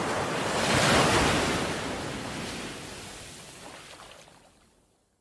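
Small waves breaking and washing up a sandy beach, one swell loudest about a second in, then the surf fading out to silence near the end.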